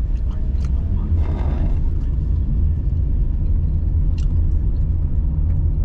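Car cabin noise: a steady low rumble of engine and road as the car pulls away and gathers speed gently. A brief hiss about a second in.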